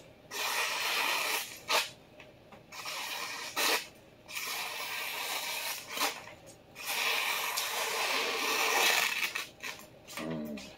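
Vintage Clyde Cutlery chef knife slicing through a hanging sheet of newspaper: four long papery hissing strokes, with short crinkles of the paper between them. It is a cut test of the freshly sharpened edge, the blade passing cleanly through the paper.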